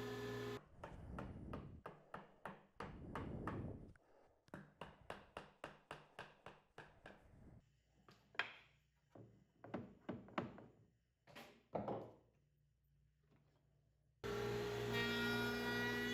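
Knocking and tapping on wood: a few knocks, then a quick even run of about a dozen taps, then scattered louder knocks. A steady hum comes back near the end.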